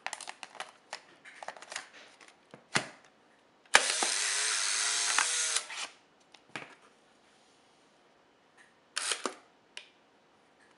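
Polaroid SX-70 camera: handling clicks as the freshly loaded film door is shut, then a sharp click and the camera's motor whirring steadily for about two seconds as it ejects the dark slide from the new film pack. A brief cluster of clicks near the end.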